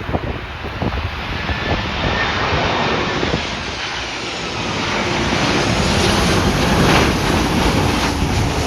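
Airliner's engines passing during a landing, the noise swelling to its loudest about seven seconds in, with wind buffeting the microphone.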